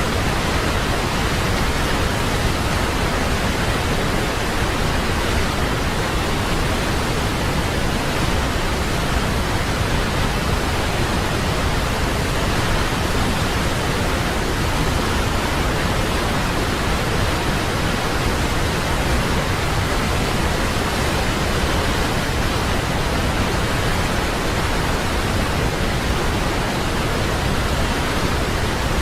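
Waterfall: a steady, even rush of falling water, unchanging throughout, with no other sounds.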